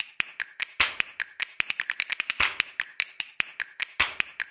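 Rapid string of sharp, snap-like clicks, about six or seven a second, from an edited-in end-screen sound effect. It breaks off briefly near the end.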